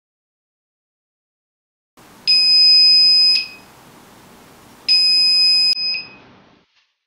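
Small electronic buzzer in a simple LDR light-sensor alarm circuit, beeping twice with a steady high-pitched tone, each beep about a second long. The buzzer sounds when the light-dependent resistor senses a change in light.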